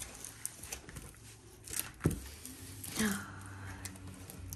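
A large diamond painting canvas with its plastic cover being unrolled and pressed flat by hand on a table: light crinkling and rustling of the film, with one heavier thump about two seconds in.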